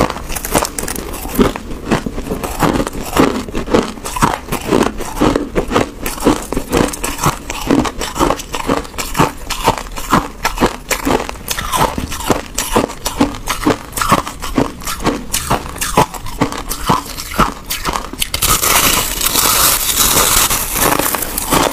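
Close-miked chewing of a mouthful of crushed ice: a quick, even run of crisp crunches. Near the end it turns into a denser, hissing crackle as a packed ball of crushed ice is bitten into.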